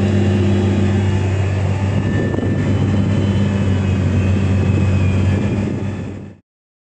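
Tractor engine running steadily under load, heard from inside the cab, while pulling a deep-set 8-row paratill through the soil. The sound fades out about six seconds in.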